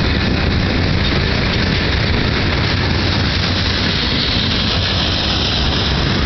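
Freight cars of a mixed freight train rolling past at close range: a loud, steady rumble of steel wheels on rail.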